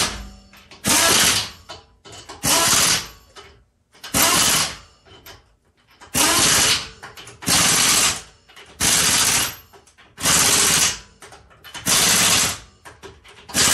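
Impact wrench with an 80 ft-lb torque stick running in wheel lug bolts: about ten short rattling bursts of hammering, one bolt after another, with brief pauses between them. The torque stick keeps the bolts from being over-tightened; final torque to 100 ft-lb is set later with a torque wrench.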